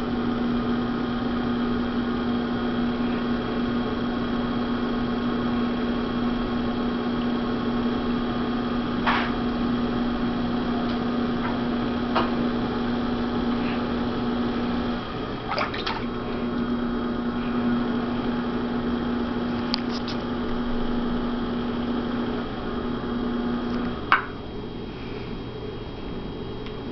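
Electric potter's wheel running with a steady hum, and the wet swish of hands on the spinning clay. The hum drops out briefly about halfway through and again near the end, and there are a few light clicks.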